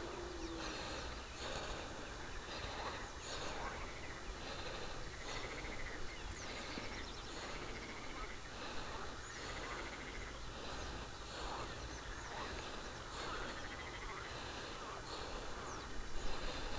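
Outdoor chorus of animal calls: short pulsed calls repeat about once a second over a steady background hiss.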